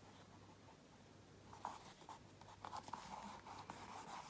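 Faint rubbing and rustling of a paper washi sticker being peeled off its sheet and pressed down onto a journal page with the fingers, starting about a second and a half in.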